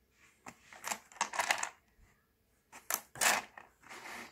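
Pieces of rough opal clicking and clattering against one another in a plastic tub as stones are put down and picked up, in two bursts of small hard clicks.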